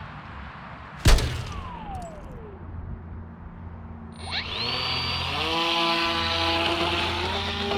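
Small electric RC plane motor (a 2500KV brushless outrunner with a 7-inch propeller) spinning up in a quick rising whine about four seconds in and holding at a steady high pitch, after a single sharp click about a second in.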